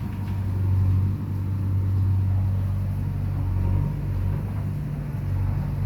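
An engine running steadily with a low rumble that swells and eases a little.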